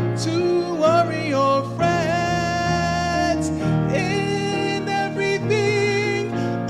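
Gospel choir singing long held notes with vibrato over instrumental accompaniment.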